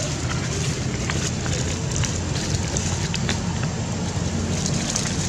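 Steady outdoor background noise: a low rumble and hiss, with scattered faint clicks.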